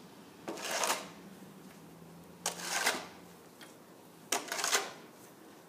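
Shovel blade scraping along a concrete sidewalk, clearing snow in three strokes about two seconds apart, each about half a second long and starting suddenly.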